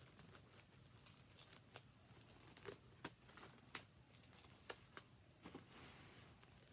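Plastic shrink wrap being peeled off a cardboard LP box set: faint crinkling with scattered sharp crackles as the film pulls away.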